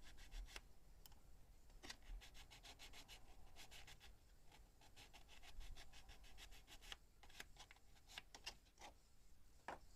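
A small plum-wood needle is rubbed back and forth against sandpaper, giving faint, quick scratchy strokes in runs with short pauses. This is hand-sanding to smooth the edges so nothing snags.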